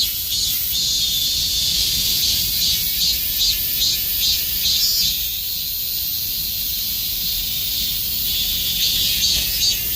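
Korean robust cicada (Hyalessa fuscata) singing: a loud, high buzzing call pulsed about twice a second, which smooths into a steady drone about halfway through before the pulsing starts again near the end.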